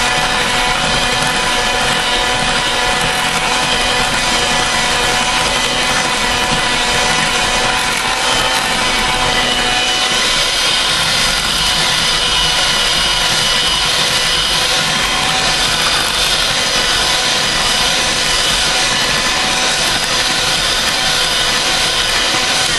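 Electric hand mixer running at a steady whine, its beaters working a thick mixture of crushed pineapple, vanilla instant pudding mix and pineapple juice in a glass bowl.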